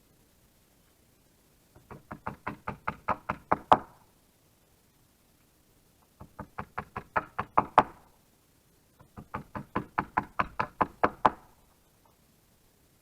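A hammer driving nails into wood in three quick runs of blows, about six a second, each run growing louder to a last hard strike.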